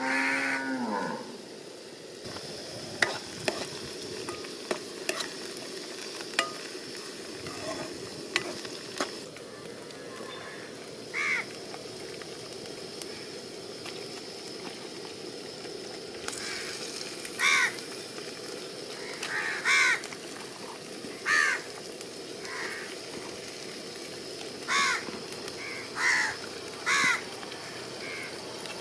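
A cow moos once at the start, a single call falling in pitch. Sharp metal clicks follow a few times, like a ladle knocking a cooking pot, over a steady frying hiss. In the second half crows caw repeatedly in short calls.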